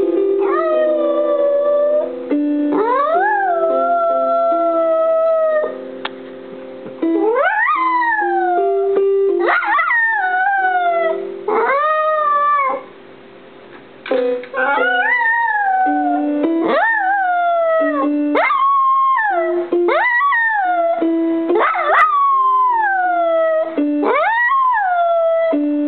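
A dog howling along to piano music: about a dozen howls, each rising quickly in pitch and then sliding down, with piano notes sounding between and under them.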